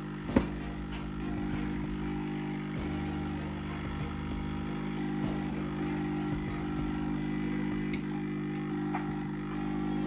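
A steady, even low hum, with a single sharp click about half a second in and a few faint ticks after it.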